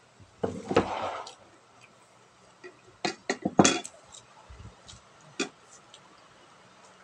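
Ceramic plates being handled on a tabletop: a short scrape and knock a little under a second in, then a quick run of sharp clinks and knocks about three seconds in, and one more clink later.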